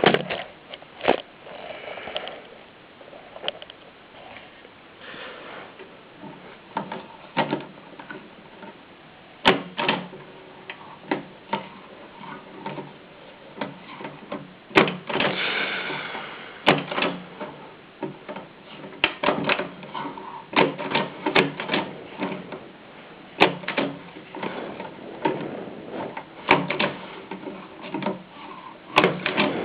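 1925 AEG Mignon Model 4 index typewriter typing a test sentence: sharp, irregularly spaced clacks as each letter is struck, roughly one a second with a few quicker runs, and fainter mechanical clicks in between.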